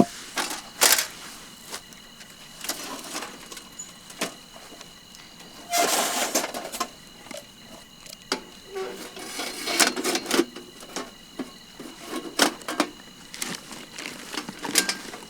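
Scattered knocks and clatters, with rustling about six seconds in and again around nine to ten seconds. A steady high insect chirring, likely crickets, runs behind.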